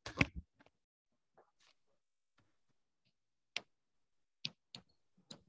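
Computer mouse clicking: a few sharp single clicks spaced irregularly, most of them in the second half. A brief soft sound comes at the very start.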